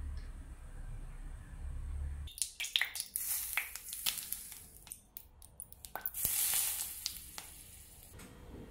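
Hot cooking oil ladled over minced garlic, chili and scallion, sizzling and crackling in loud bursts as each spoonful hits. Before that, about the first two seconds hold only a low steady rumble.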